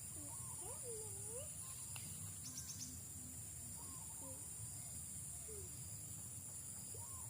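A steady, high insect chorus with a cricket-like chirring, with faint, short swooping bird calls scattered through it and a quick run of high ticks about two and a half seconds in.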